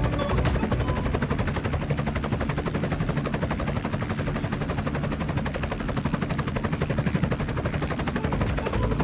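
Helicopter rotor sound effect: a fast, steady chopping of rotor blades.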